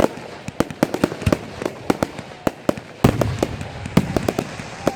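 Fireworks going off: a quick, irregular string of sharp bangs and pops, with a heavier boom about three seconds in.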